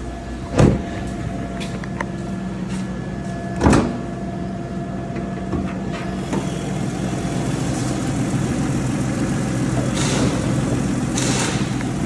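2007 Toyota RAV4 engine idling with a steady hum, broken by two sharp clunks about half a second and nearly four seconds in as the hood is released and raised. Short hissing bursts come near the end.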